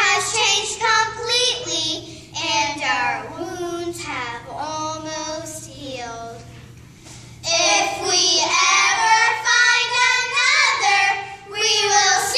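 A small group of young girls singing together in unison, unaccompanied, with a brief lull about six seconds in before they carry on.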